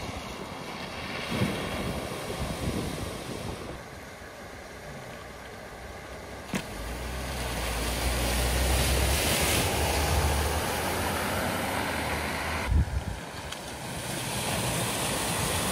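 Cars driving through a flooded ford in turn, their engines running and their tyres throwing up a hiss of spray, over water flowing across the road.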